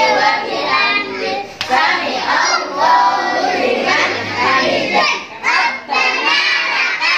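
A group of young children's voices singing and calling out together. There is a single sharp clap about one and a half seconds in.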